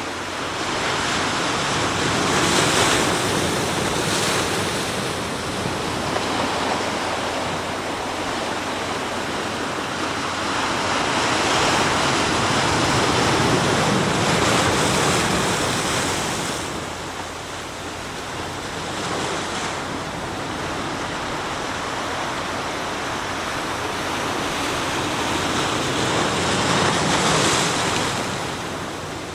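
Sea waves breaking and washing on the shore of the East Sea, the surf swelling and easing in slow surges: loudest about three seconds in, again through the middle, and once more near the end.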